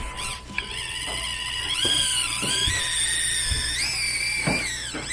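Axial SCX24 Deadbolt's small electric motor and gear train whining under throttle as the stock micro crawler climbs a steep ramp. The high whine steps up and down in pitch as the throttle changes, with a few light knocks.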